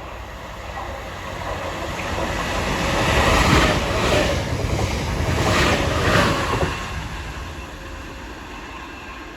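A Southeastern Class 465 Networker, a single four-car electric unit, passes through the station without stopping. Its running noise swells to a peak in the middle and then fades away. At the loudest point there are several clatters from the wheels on the track.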